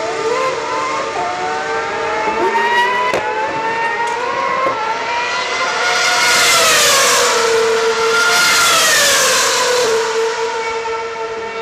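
Formula One car engines in the pit lane and passing by: several engine notes gliding up and down in pitch over a steady held engine tone. The loudest pass comes about six to nine seconds in, its pitch falling as it goes by.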